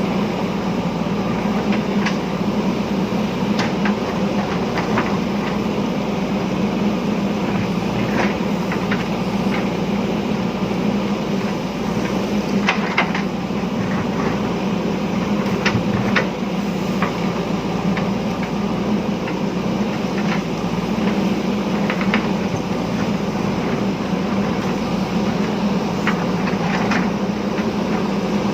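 JCB backhoe loader's diesel engine running steadily under working load, with scattered short sharp knocks and clinks of the bucket digging into stony ground.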